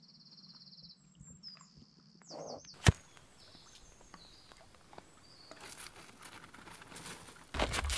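Faint birdsong in quiet outdoor air, with one sharp click about three seconds in, then a sudden loud rush of noise with a low rumble starting near the end.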